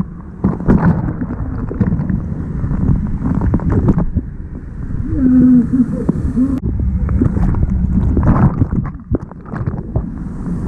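Kayak paddling on a river: water splashing and rushing with irregular knocks, and wind buffeting an action-camera microphone. The sound is dull, with little above the low and middle range.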